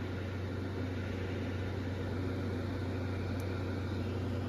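Steady low hum with an even hiss over it, from a running appliance or fan in the room; a faint click about three and a half seconds in.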